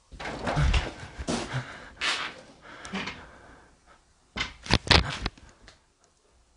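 Shuffling and rustling of someone moving through a cluttered room, then a quick run of sharp knocks about four and a half seconds in.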